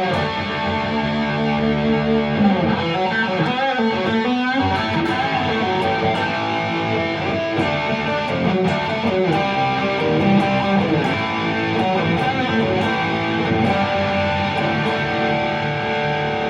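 Guild S-70 electric guitar played through an amp with distortion: continuous chords and riffs.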